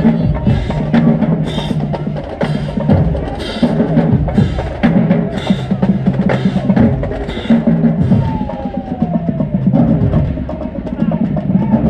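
HBCU marching band drumline playing a marching cadence: snare and bass drums beating steadily, with cymbals crashing about once a second for most of it, over sustained low band notes.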